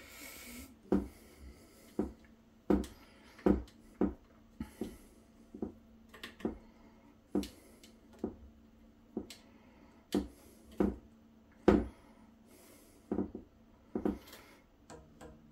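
Allen key clicking against a belt tension bolt as it is turned in short repeated strokes, a sharp click roughly every second, tightening a 3D printer's XY gantry belt.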